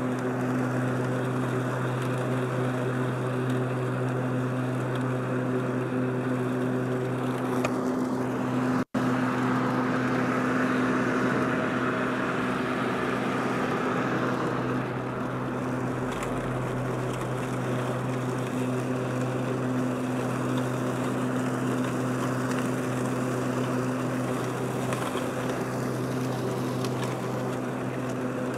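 Powersmart 80-volt cordless self-propelled lawn mower running, its twin blades mulching grass and leaves: a steady electric motor hum with a whirring blade note. The sound cuts out for an instant about nine seconds in.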